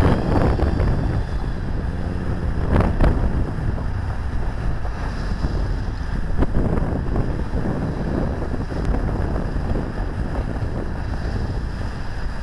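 Wind buffeting the microphone: a steady, low rushing rumble, with louder gusts at the start and about three seconds in.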